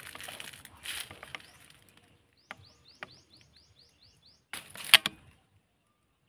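Rustling and handling noise, then a run of about nine quick rising bird chirps, about five a second. A loud sharp clack with a brief rattle follows near the five-second mark.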